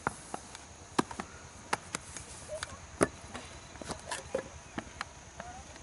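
Irregular sharp taps and knocks, about three a second, as a flat metal scraper is worked against sun-drying green mud bricks; the loudest tap comes about three seconds in. A steady high insect drone runs underneath.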